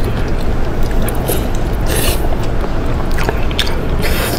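Close-miked eating sounds, with scattered wet squelches and small clicks of soft food being chewed and handled, over a steady low rumble.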